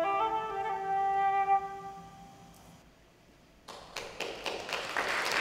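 Solo flute playing the last notes of a short piece, ending on a held note that dies away in the hall's reverberation. After a brief hush, the audience starts clapping, a few claps at first that quickly build into full applause near the end.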